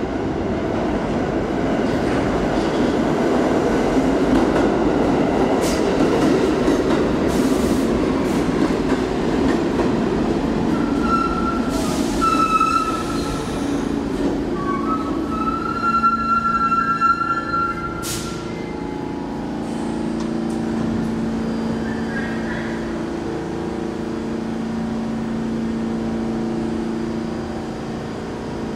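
R46 New York subway train pulling into an underground station: a loud rumble of wheels on the rails, then high-pitched squealing from the brakes and wheels as it slows. It stops with a short sharp hiss of air about two-thirds of the way in, then stands with a steady low hum.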